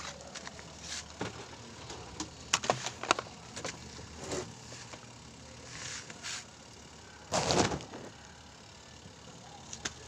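Scattered light clicks and knocks of hand work on a washing machine, with a louder rustling noise about half a second long a little past the middle.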